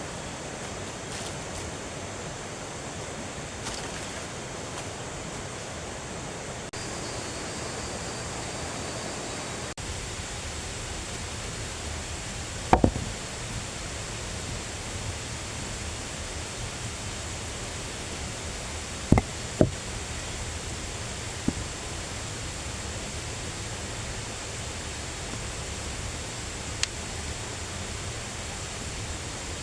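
Steady rushing background noise, broken by a few sharp knocks: one about thirteen seconds in, two close together around twenty seconds, and fainter ones later. A faint high whine joins the noise about ten seconds in.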